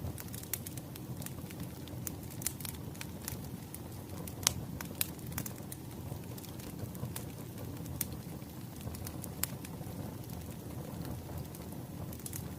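Wood fire crackling: irregular sharp pops and snaps over a steady low rumble of burning logs, one louder pop about four and a half seconds in.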